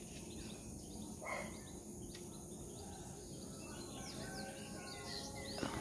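Faint outdoor ambience with birds chirping: a short chirp early on, then several quick downward-sliding calls in the second half.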